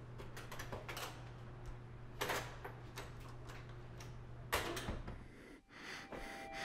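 Room tone with a steady low hum and scattered light taps and clicks, with louder clatters about two seconds and four and a half seconds in. The hum cuts off about five and a half seconds in, leaving a quieter hush.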